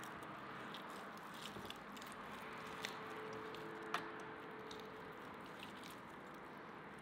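A knife carving through roasted beef rib meat with soft squishy cutting sounds, and a few sharp clicks of the knife and fork against the bone or tray, the loudest about four seconds in, over a steady low hiss.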